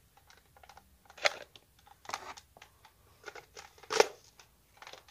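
Hard plastic clicks and scrapes of a Nerf scope being slid onto the rail of a Nerf Fortnite Hammer Action SR blaster, with sharper knocks about a second in, about two seconds in, and the loudest about four seconds in.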